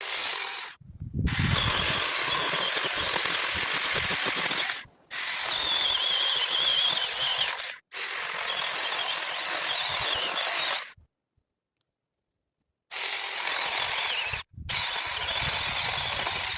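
Mini chainsaw running and cutting wood: a dense, rasping noise with a high, wavering whine. It comes in six spells, and each one cuts off abruptly.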